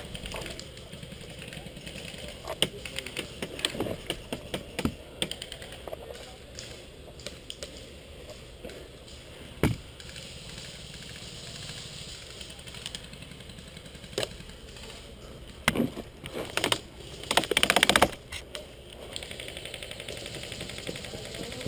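Sporadic sharp pops and taps of airsoft gunfire and pellet hits in an ongoing skirmish, with a quick run of louder ones near the end.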